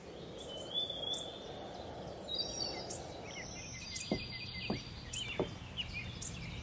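Several birds chirping and trilling in short high calls over a steady background hiss, with a few faint ticks about four to five seconds in.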